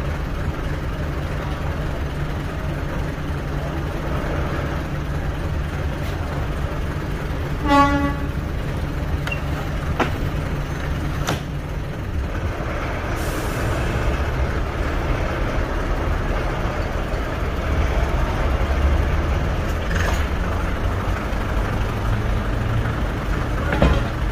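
Diesel multiple unit engines running steadily, with one short horn toot about eight seconds in. Around twelve seconds a steady low drone drops out and the engine note changes.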